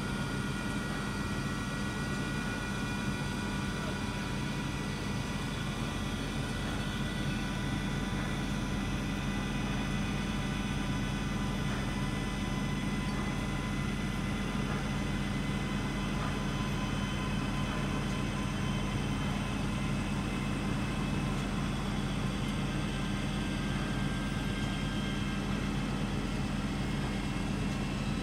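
Steady machinery hum with a low drone and several steady higher tones that hold unchanged throughout.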